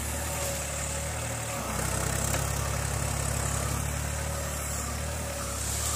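Hitachi mini excavator's diesel engine running steadily. About a second and a half in, its note changes and grows a little louder as the control levers are worked and the engine takes the hydraulic load.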